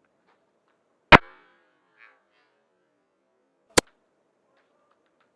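Two sharp airsoft rifle shots about two and a half seconds apart, the first louder with a brief ringing tail.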